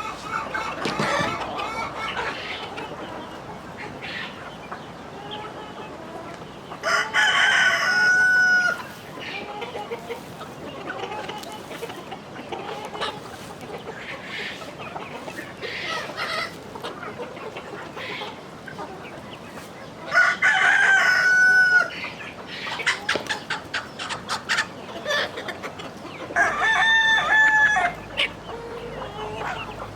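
Chickens clucking, with a rooster crowing three times, each crow about two seconds long and ending on a drawn-out note.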